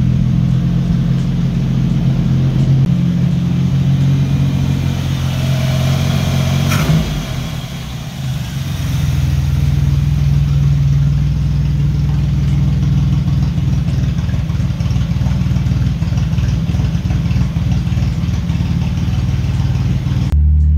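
1983 Buick Regal's carbureted engine idling steadily, with one sharp knock about seven seconds in. The sound cuts off abruptly just before the end.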